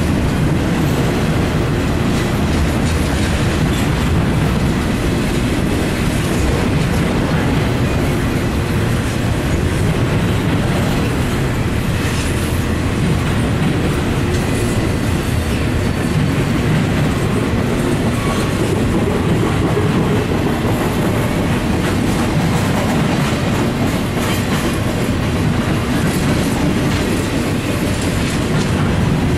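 Double-stack intermodal container train rolling steadily past, a loud, even rumble of steel wheels on rail with scattered clacks as the wheels pass over the rail joints.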